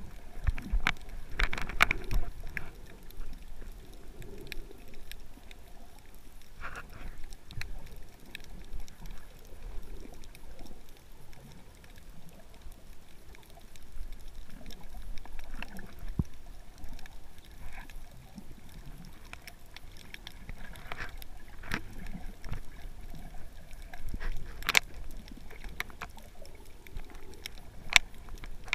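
Underwater sound heard through a GoPro's waterproof housing: a muffled rumble of moving water with irregular sharp clicks and knocks scattered through it.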